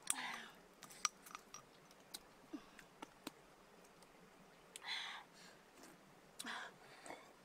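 Cooked river snail shells clicking and knocking sharply as they are handled, with short slurps as the snail meat is sucked out of a shell at the start, about five seconds in and again about a second later.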